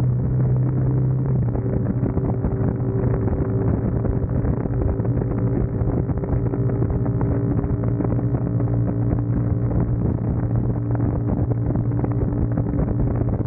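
CFMoto 300SS's single-cylinder engine running steadily at cruising speed, a constant drone pulling gently as the bike speeds up, with low wind rumble on the microphone.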